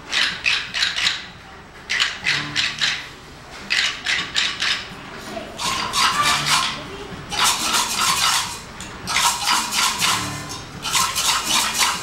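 Children's percussion section of a choir playing rhythm sticks and tambourines in a repeating pattern. Short clusters of quick clicking and rattling strikes come about every one to two seconds and grow denser and brighter in the second half.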